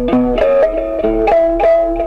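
Khse diev, the Cambodian single-string stick zither with a gourd resonator, plucked in a run of ringing notes, about three a second.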